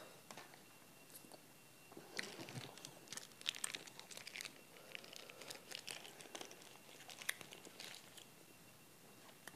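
Plastic ice cream wrapper crinkling and being torn open, a run of crackles starting about two seconds in and lasting until near the end.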